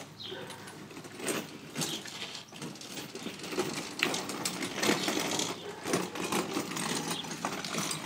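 Pedal go-kart rolling over asphalt: its wheels rumble and the frame rattles with many small irregular clicks as it is pedalled.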